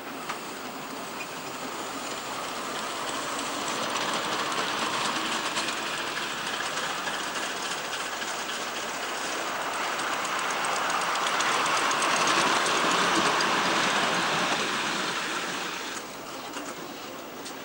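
Ride-on live-steam miniature train running along the track, a steady noisy rush with fine rapid ticking. It grows louder to a peak about two-thirds of the way through and drops away near the end.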